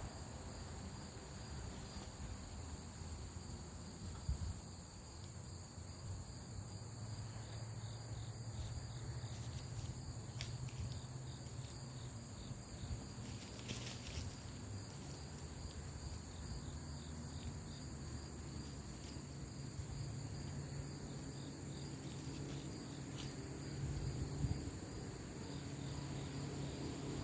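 A steady, high-pitched chorus of insects buzzing in late-summer woods, with a low hum underneath that grows stronger in the second half. A few brief knocks and leaf rustles come from the tarp being handled.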